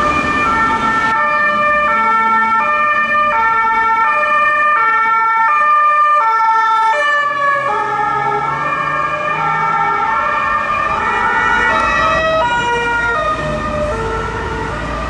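Swiss police cars' two-tone sirens, switching between a high and a low note about twice a second. About seven seconds in, a second car's siren takes over at a slightly different pitch, with its engine audible beneath.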